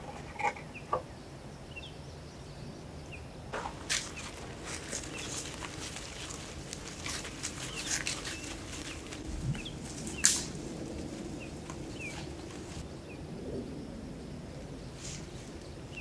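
Footsteps rustling through dry leaf litter, thickest in the middle, with one sharp crack about ten seconds in. Short bird chirps come now and then.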